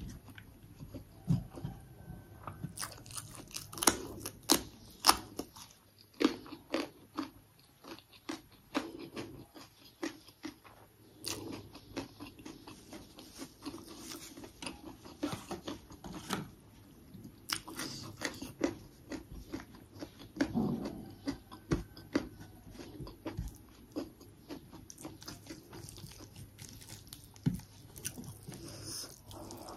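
A person chewing and crunching mouthfuls of food, with many sharp, irregular crunchy bites, loudest around four to five seconds in.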